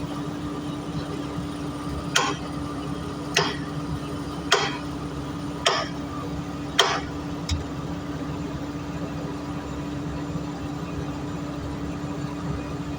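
Doosan DX225 excavator's diesel engine running steadily at idle, with a series of sharp knocks about a second apart, five loud ones and a lighter sixth.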